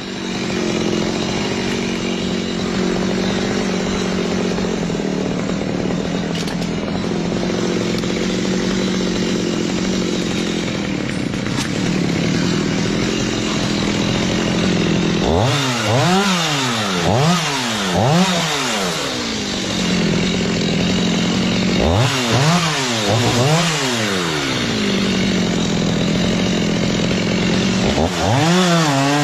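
Two-stroke chainsaw running at a steady, loaded pitch. About halfway through, its engine rises and falls in pitch over and over as the throttle is revved up and down, and it does so again twice more later on.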